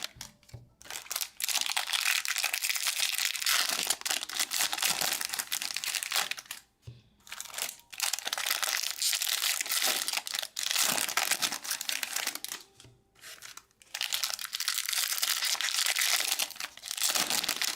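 Foil trading-card pack wrappers crinkling and tearing as packs are ripped open, in several long stretches of rustling broken by brief pauses.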